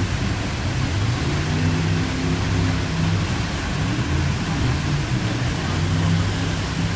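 Steady rushing of turbulent whitewater, with a jet boat's engine droning low underneath, its pitch shifting a little as the boat manoeuvres.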